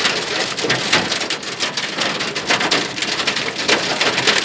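Heavy rain with hailstones coming down: a dense, steady patter thick with many sharp individual hits on surfaces.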